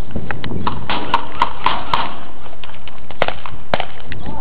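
Airsoft fire: a string of sharp clicks and cracks of airsoft guns shooting and BBs striking, several in quick succession in the first two seconds and two more later on.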